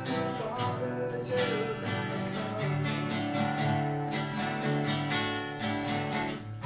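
Two guitars playing together: an acoustic guitar strummed in a steady rhythm alongside a hollow-body electric guitar.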